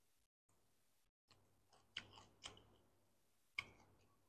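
Quiet chewing of a crisp raw vegetable stalk, with a few short crunches and mouth clicks from about two seconds in.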